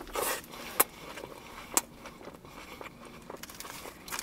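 Faint handling of fast-food packaging: a short paper rustle, then two sharp clicks about a second apart and a few small ticks.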